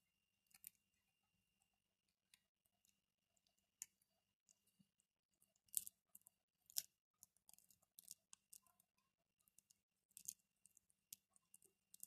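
Parakeets pecking and chewing at a bowl of food: scattered sharp clicks and small crunches of beaks cracking and picking at the pieces, irregular, with a few louder ones near the middle and about three-quarters through.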